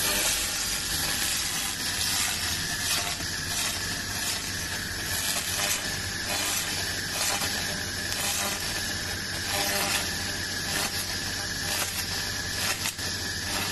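Handheld laser machine working on metal: a steady hissing with a constant fine crackle as the beam hits the surface, over a low machine hum.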